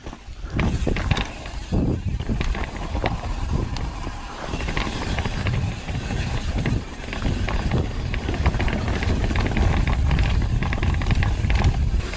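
Mountain bike descending a rough downhill dirt trail: tyres rumbling over dirt and roots, the bike rattling and clattering with many short knocks, and wind on the microphone.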